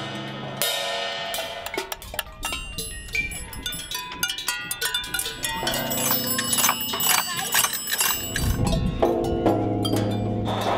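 Metal sound sculptures struck with mallets: many quick strikes on ringing metal, their tones overlapping, with a lower sustained ring near the end.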